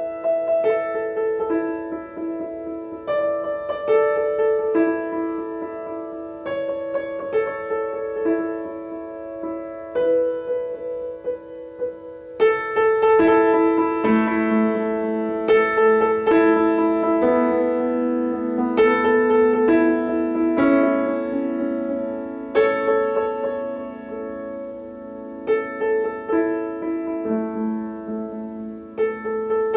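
Slow new-age piano duet: sustained chords and melody notes ringing over one another, with a lower held part coming in about halfway through.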